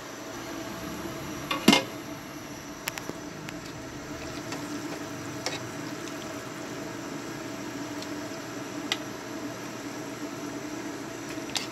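Cooked macaroni tipped from a bowl into a pot of hot soup and stirred with a ladle: one sharp clink of the bowl against the pot about two seconds in, then a few light clinks of the ladle, over a steady low hum and the soft sound of the liquid.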